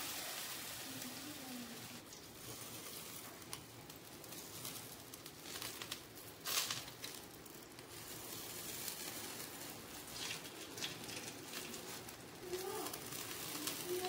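Marinated leg of mutton sizzling on a charcoal barbecue grill, with scattered crackles and one louder crackle about six and a half seconds in.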